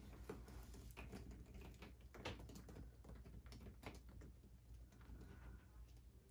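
Faint scattered clicks and soft knocks of a wet stretched canvas being handled and tilted, the loudest a little over two seconds in.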